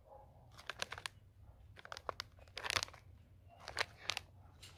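A foil pouch crinkling as it is handled, in a few short clusters of sharp crackles about a second apart.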